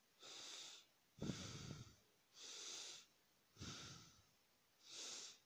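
Faint breathing close to the microphone: five soft breaths in and out at an even pace, about one every 1.2 seconds.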